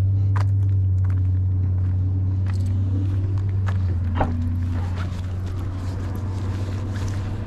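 A car engine idling with a steady low drone that slowly fades, with footsteps and small clicks over it.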